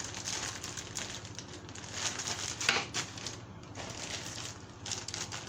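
Plastic packaging crinkling and rustling in irregular bursts as small RC kit parts are handled, with one sharper crackle a little under three seconds in.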